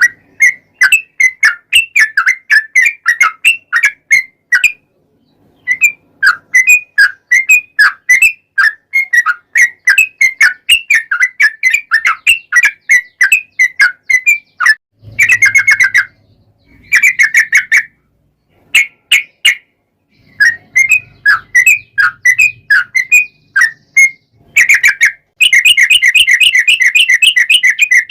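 Yellow-vented bulbul (trucukan) singing: rapid, chattering phrases of short bubbly notes with brief pauses between them, running into a fast continuous rattling run near the end.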